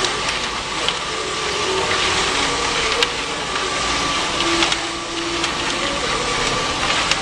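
Front-loading washing machine running with its drum turning a load of laundry: a steady mechanical noise with a faint hum and a few small clicks.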